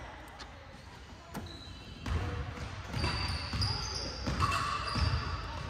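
A basketball being dribbled on a hardwood gym floor: from about two seconds in, repeated low bounces about twice a second. Short high squeaks from sneakers on the court come in over the bounces, with voices in the gym behind.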